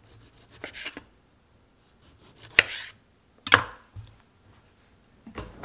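Chef's knife cutting through a kiwi on a plastic cutting board: soft scraping at first, then three sharp knocks of the blade and knife against the board.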